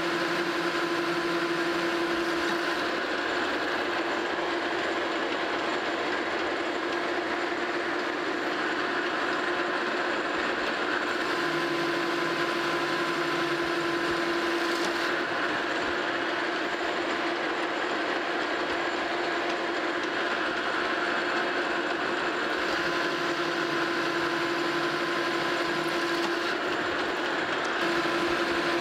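Monarch Model K metal lathe running under power while a carbide-insert tool turns down the diameter of a metal bar: a steady machine hum and the noise of the cut, with a humming tone that fades in and out a few times.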